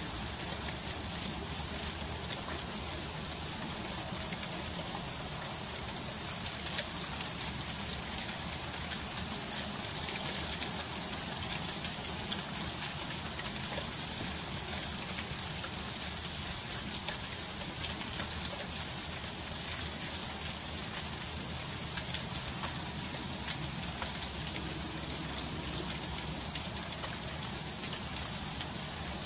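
Freezing rain falling steadily in a dense hiss of fine ticks as the drops strike icy surfaces, with a couple of sharper clicks.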